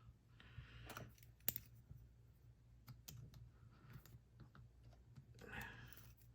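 Faint, scattered clicks and taps of the disassembled ASSA 700 lock and its small metal parts being handled, with one sharper click about a second and a half in.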